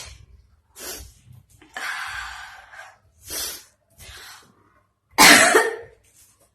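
A person sneezing, set off by cotton tickling inside the nose: several short breathy sounds and a longer intake of breath, then a loud sneeze about five seconds in.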